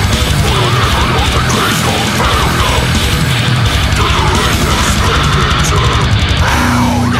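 Loud heavy metal music with a fast, driving beat.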